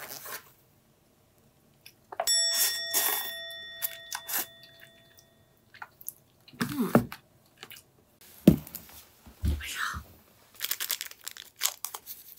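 A bell-like chime rings out about two seconds in and fades away over a few seconds. Then come scattered knocks, two dull thumps and plastic crinkling as a plastic instant-yakisoba tray is handled with chopsticks and a seasoning sachet is torn open.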